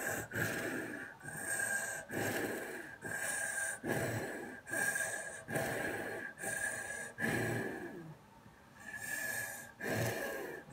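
A child breathing hard through pursed lips in short puffs, about one a second, each with a faint whistling tone. There is a brief pause near the end.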